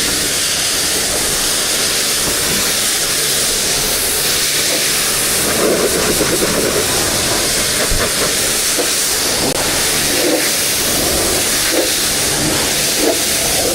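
Self-service car-wash pressure washer in rinse mode, spraying water in a steady loud hiss. Splashier patches come in from about halfway through.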